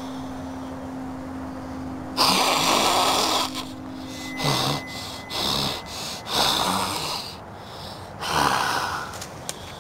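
Raspy, breathy growls imitating a werewolf: one long growl about two seconds in, then four shorter ones.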